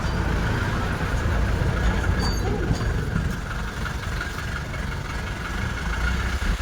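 Steady motor-vehicle engine rumble with road noise.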